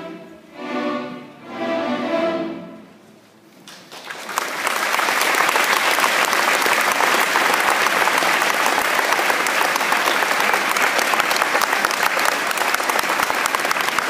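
A school string orchestra plays its closing bars: two last chords that swell and fade away. About four seconds in, the audience bursts into steady applause, the loudest sound, which lasts to the end.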